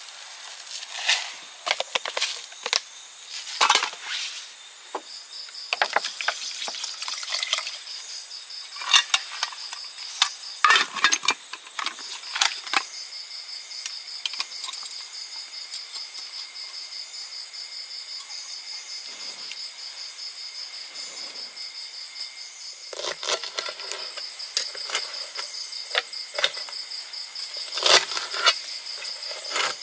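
Insects chirring steadily at a high pitch, with a pulsing trill joining about five seconds in, and scattered sharp clicks and knocks of things being handled, mostly in the first half and again near the end.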